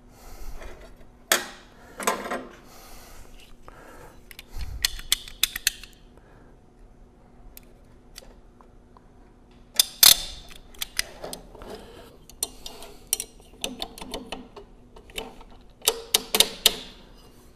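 Scattered metallic clicks and clinks of hand tools being handled: snap ring pliers picked up off the bench and a snap ring worked onto their tips. The sharpest clacks come about one and two seconds in, around ten seconds, and in a quick cluster near the end.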